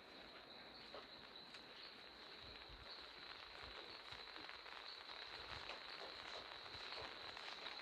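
Faint, steady rain falling, a fine patter of drops, with a thin steady high-pitched tone underneath.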